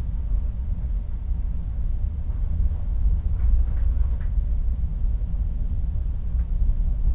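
Steady low rumble of a ship under way at sea, heard from inside a cabin by the porthole: engine and hull noise with the sea muffled behind it. A few faint light ticks come a few seconds in.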